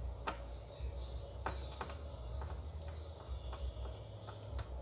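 Faint, irregular clicks and crackles of solder and flux as a soldering iron works the pins of a small chip on a circuit board, over a steady low hum.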